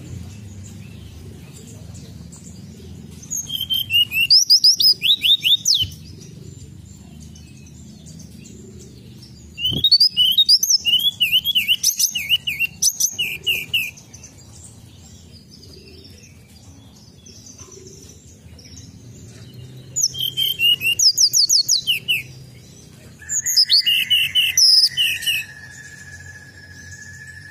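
Hill blue flycatcher (tledekan gunung) singing four bursts of quick, sweeping high notes, each two to four seconds long, with pauses between them. During the last burst a steady high tone starts and holds to the end.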